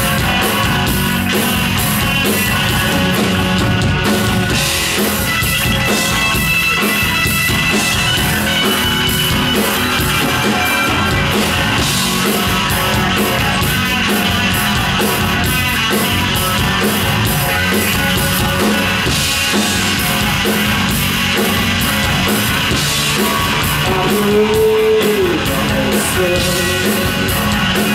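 Post-punk rock band playing live at full volume: electric guitar, bass and drums.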